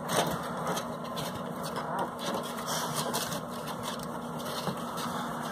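Steady mechanical hum over a constant background rush, like a small motor or fan running, with a few faint light knocks.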